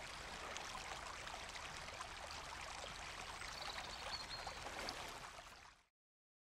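Stream water rushing and splashing over rocks, a steady flow that fades out near the end and stops.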